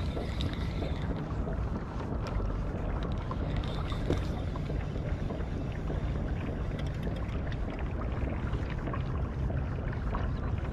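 Small fishing boat under way: a steady low hum of its motor, with water and wind noise.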